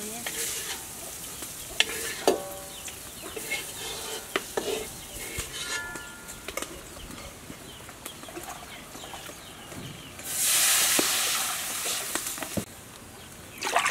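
Metal spoons scraping and clinking against stainless-steel bowls and a wok, with brief metallic ringing after some of the knocks. About ten seconds in, a loud sizzling hiss rises from the hot wok and lasts roughly two seconds.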